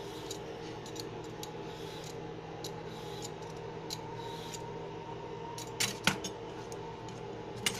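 Metal hand peeler scraping long strips of skin off a cucumber, in short strokes about once a second, with a few sharper clicks around six seconds in and near the end, over a steady low hum.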